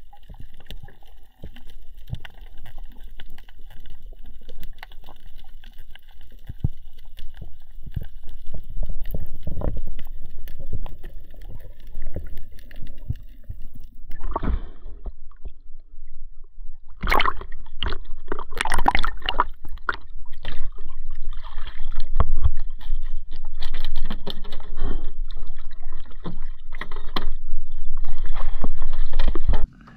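Underwater sound around a freediver's camera: a low rumble with faint steady high tones. About halfway through the camera breaks the surface, and loud splashing and sloshing of water follows as the diver swims to the boat and hauls himself up onto its side, cutting off suddenly just before the end.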